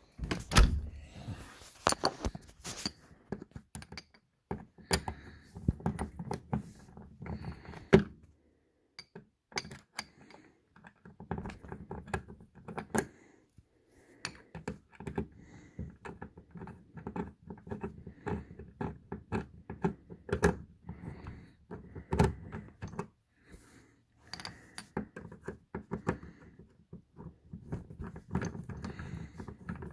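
Door knob and lock hardware being handled and worked, freshly lubricated with WD-40: many sharp clicks, knocks and small metallic rattles, in runs with short pauses between.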